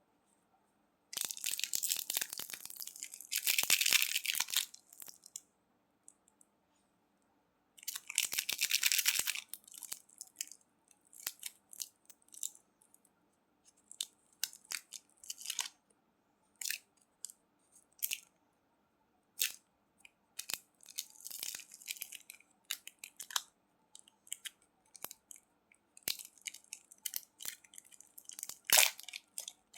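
Crunchy candy being bitten and crunched: two long dense crunches in the first ten seconds, then many short crackles and snaps.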